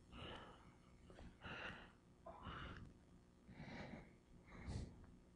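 Faint breathing close to a microphone: five soft puffs of breath, about one a second.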